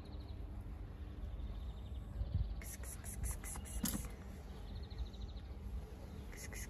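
Outdoor ambience: a steady low rumble, with rapid high chirping that comes in a burst about two and a half seconds in and again near the end.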